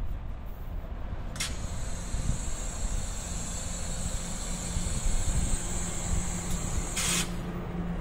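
Train air brakes hissing: a short burst of air about a second in, then a steady high hiss for about five seconds, ending in a second, stronger burst of air near the end, over a low steady rumble.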